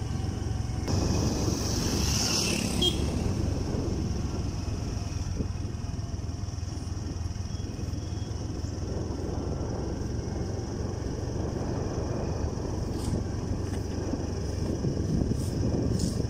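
Motorcycle running steadily while riding along a road, engine and road noise without a break.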